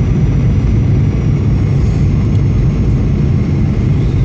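Steady low rumble of airliner cabin noise as the plane comes in to land.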